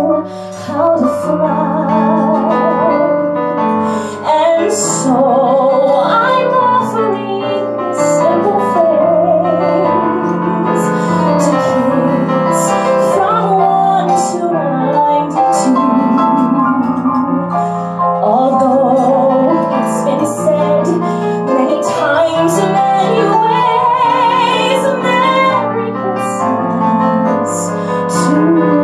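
A woman singing with vibrato into a microphone, accompanied by piano.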